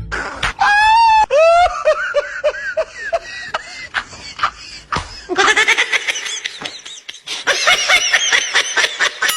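High-pitched laughter, first a squealing laugh, then a string of short rapid 'ha' pulses. About halfway through it turns into a louder, denser stretch of giggling.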